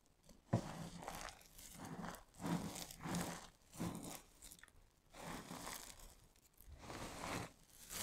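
Hands squeezing and scooping a heap of crumbled dry soap pieces: crisp crunching and crinkling in irregular bursts as the fragments grind and break, the sharpest crunch about half a second in.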